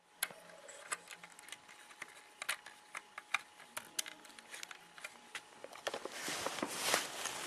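Plastic clicks and clacks of a LEGO slide-action catapult gun being handled and loaded, in irregular single snaps. Near the end they give way to a louder, denser run of scraping and clatter.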